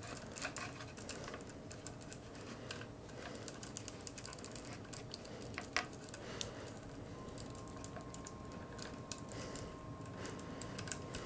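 Faint, scattered small clicks and ticks of hard plastic being handled: the joints and parts of a 4-inch action figure being moved and set into a pose on its display stand.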